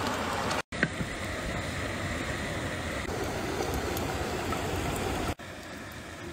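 Pot of water at a rolling boil, a steady bubbling hiss, with one sharp click about a second in. It becomes quieter about five seconds in.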